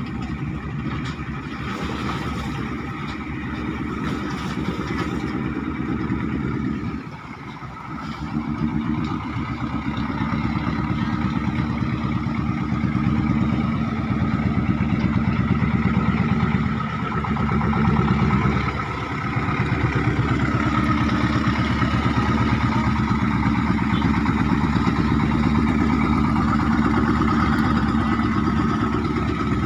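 Klotok riverboat engine running steadily with a rapid, even beat. It drops off briefly about seven seconds in, then picks up again and runs a little louder.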